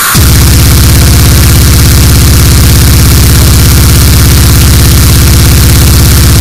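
Speedcore music: a heavily distorted kick drum repeating so fast that it blurs into a buzzing drone, under a dense wash of noisy hiss. It runs loud and unbroken.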